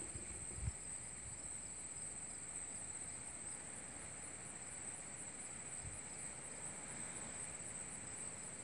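Steady high-pitched chorus of insects chirping, with a couple of faint low thuds.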